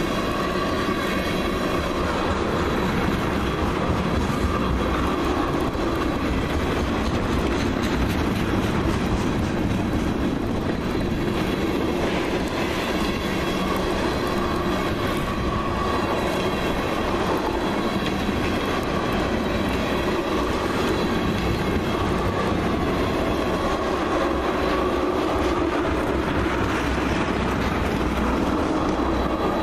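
Ethanol tank cars of a freight train rolling steadily past: a continuous rumble of steel wheels on rail, with a faint wavering ring from the wheels.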